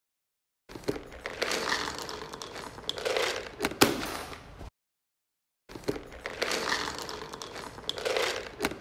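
Dry cat kibble crackling and rattling, with scattered sharp clicks. The stretch of about four seconds starts just under a second in, cuts off suddenly, and after a second of silence plays again.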